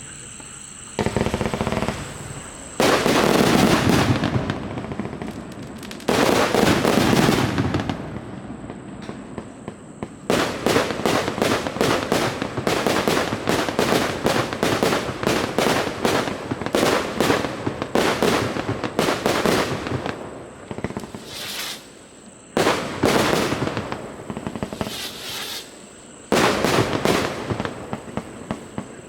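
A 300-shot firework cake firing. Rapid volleys of sharp bangs, several a second, come in surges, with a few longer bursts of heavy crackling between them.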